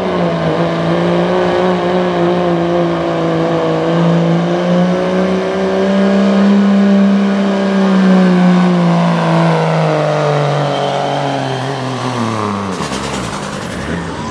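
Dodge Ram diesel pulling truck at full throttle, dragging a weight-transfer sled, its engine held at high revs. The revs sag in the last few seconds as the truck slows under the sled's growing load.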